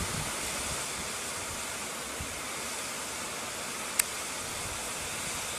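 Swollen river rushing fast, a steady hiss of running water, with one brief click about four seconds in.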